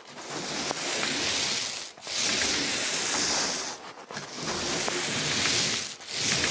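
Paint roller running over wet paint on a wall, a sticky hiss with each pass, about four long strokes with short breaks between. It is the light laying-off pass that flattens the roller texture out of the fresh paint.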